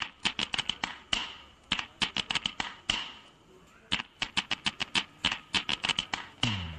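Rapid clicks and taps in irregular bursts, several a second, each with a short ring, pausing briefly in the middle. A short falling tone comes just before the end.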